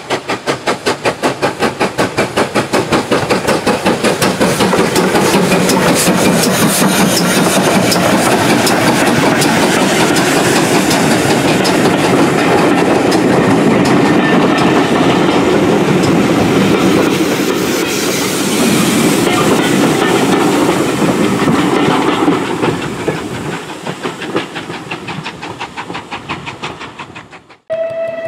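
Steam locomotive working hard past at speed, its exhaust beats coming about five a second, then the coaches rolling by with wheel clatter and steam hiss, fading away before a sudden cut near the end.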